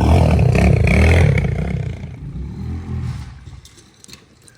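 Motorcycle engine revving up and down, then fading away about two seconds in as the bike rides off.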